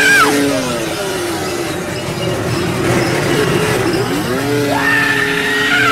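Corded electric chainsaw revving. Its motor whine winds down just after the start, then about four and a half seconds in it spins up again, holds steady, and begins to wind down at the end.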